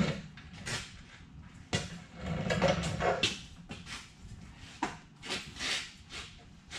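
Irregular metal knocks and clunks, a few sharp taps among them, as the door hinge pins of a 1988–1998 Chevrolet/GMC pickup are tapped out of their holes.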